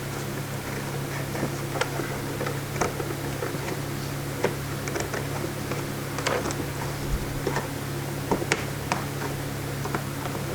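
Scattered light clicks and taps from hands working on plastic snowmobile console parts and wiring while a 12-volt outlet is fitted, over a steady low hum.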